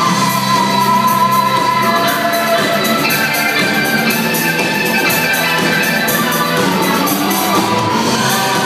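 A live rock band playing, with electric guitars and a drum kit keeping a steady beat.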